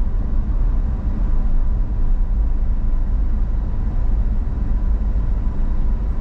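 Steady low rumble of a moving car heard from inside the cabin: tyre and engine noise while driving.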